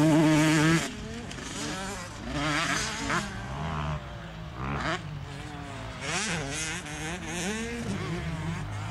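Motocross dirt bike engines revving hard and dropping back, rising and falling in pitch again and again as the riders work the throttle through the jumps and turns. One bike is loud and close for about the first second, then the engines sound farther off.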